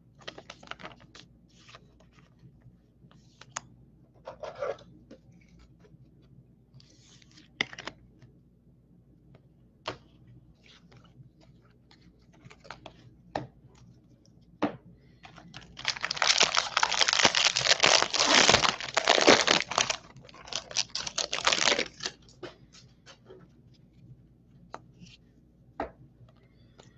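A baseball card pack's foil wrapper being torn open and crinkled in a loud stretch of about six seconds past the middle, amid scattered light clicks and rustles of trading cards being flipped through by hand.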